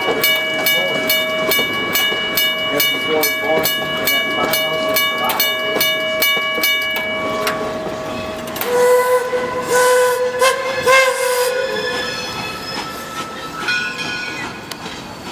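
Steam locomotive (an 1897 Baldwin) with its bell ringing in a steady, even rhythm until about seven seconds in. After a short gap its steam whistle blows one long, slightly wavering blast, with a short toot near the end.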